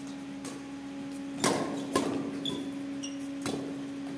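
Badminton rackets striking a shuttlecock in a doubles rally: four sharp hits, the loudest two about half a second apart near the middle, with a few short high squeaks between them, over a steady electrical hum.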